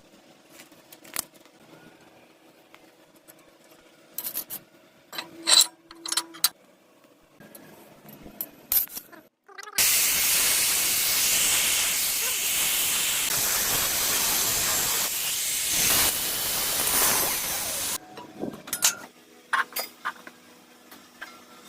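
Welding arc burning for about eight seconds in the middle, a loud steady hiss that starts and stops abruptly. Light metallic clicks and taps come before and after it.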